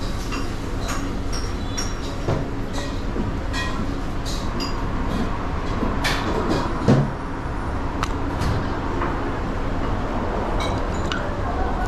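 Background noise of a small busy restaurant: a steady low rumble with scattered sharp clinks and knocks, like dishes and utensils, and one heavier knock about seven seconds in.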